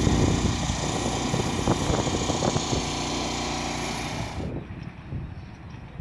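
A truck engine idling steadily, with a few clicks over it; it cuts off suddenly about four and a half seconds in, leaving a quieter outdoor background.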